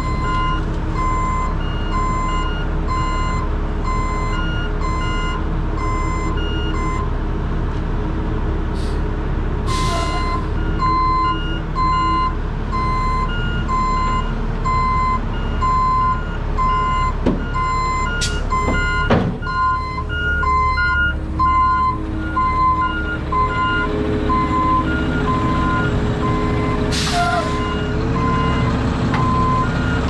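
Heavy truck's reversing alarm beeping about once a second over the steady running of heavy diesel truck engines, with a short pause in the beeping early on. Brief hisses of air, as from air brakes, come about ten seconds in and again near the end.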